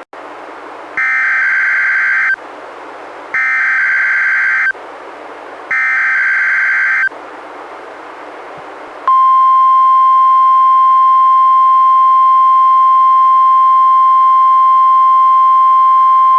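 NOAA Weather Radio test alert. It opens with three raspy, buzzing bursts of SAME digital header data, each about a second and a half long. About nine seconds in, the steady 1050 Hz warning alarm tone starts and holds.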